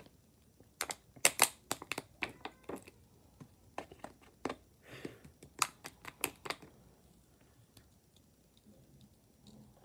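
Thin plastic water bottle crackling and clicking as it is handled and its screw cap is twisted off: a quick irregular run of sharp crackles that dies away after about seven seconds.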